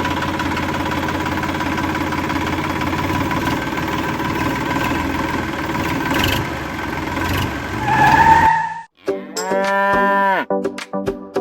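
A steady engine-like running noise for about eight seconds, which cuts off suddenly. It is followed by one cow moo that rises and then falls in pitch.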